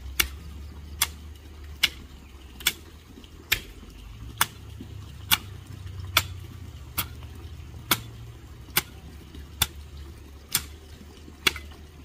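Hand hoe chopping into garden soil, a sharp strike a little over once a second in a steady rhythm.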